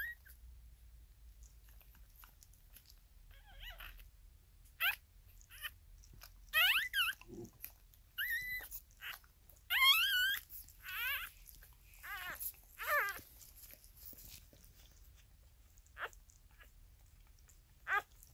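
Newborn corgi puppies squealing: about a dozen short, high-pitched, wavering cries, bunched in the middle and spaced out near the end.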